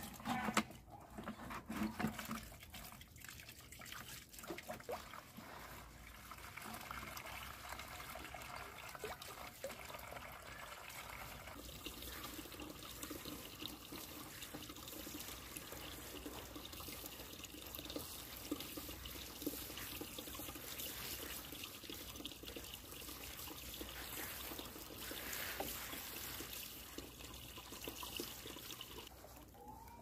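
Water trickling steadily from a hose pipe into a plastic container, with a few knocks in the first two seconds.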